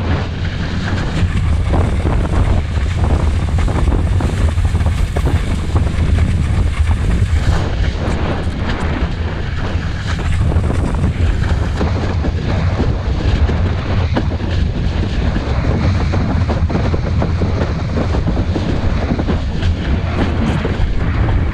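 Steady wind buffeting on a helmet-mounted action camera's microphone, a deep continuous rumble, with water rushing and slapping under a windsurf board sailing through chop.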